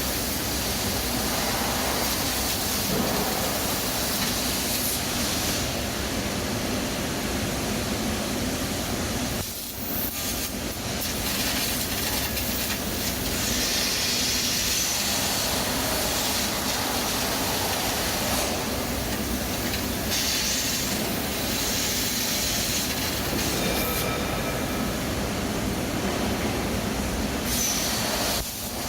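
Plasma cutter running: a loud, steady hiss of the plasma arc and air jet cutting sheet steel, breaking off briefly about ten seconds in and again near the end.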